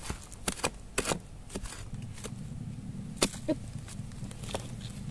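A hand spade chopping and scraping into hard, stony red clay to dig out a bamboo shoot: a series of sharp strikes, several close together in the first second and a half, then a few more spaced out. A low steady hum sits underneath from about two seconds in.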